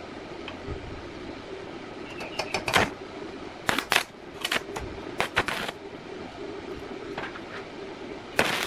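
Stick (arc) welder tack-welding a steel tab to a square steel tube: several short bursts of arc as the electrode is struck and held briefly, over a steady low hum.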